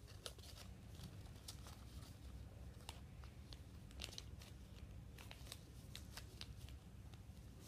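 Faint crinkling and small crackles of a sheet of paper being folded and creased by hand, scattered irregularly over a low steady hum.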